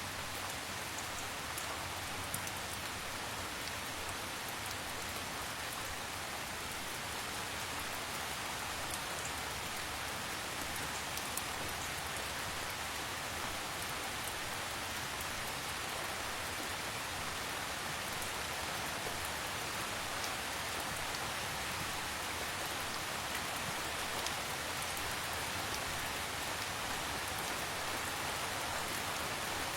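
Steady, calm rain falling on a surface: an even hiss with fine scattered ticks of individual drops.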